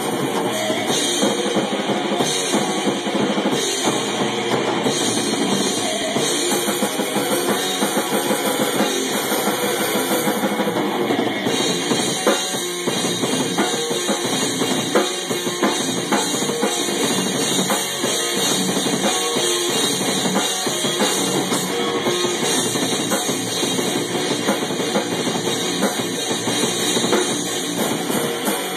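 A rock band playing: a drum kit with bass drum and cymbals driving under an electric guitar, loud and without a break.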